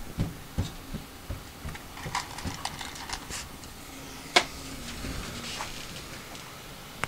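Scattered light clicks and taps of small parts and tools being handled on a workbench, with one sharper click about four and a half seconds in.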